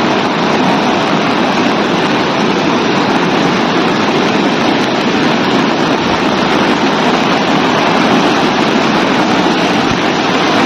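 Swollen river in flood rushing over rapids: a loud, steady churning of water.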